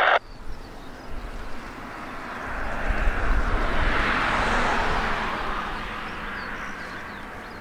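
Cessna 172S Skyhawk SP's four-cylinder Lycoming engine and propeller at full takeoff power as the plane lifts off and climbs out. The drone swells to its loudest about four seconds in, then slowly fades.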